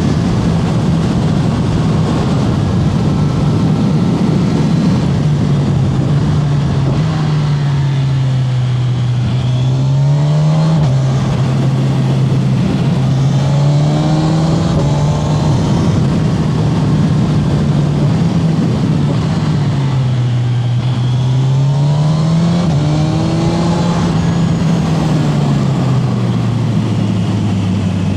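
Kawasaki Z1100 SE air-cooled inline-four motorcycle engine running under way. Its note rises and falls in steps, going up several times and settling lower near the end.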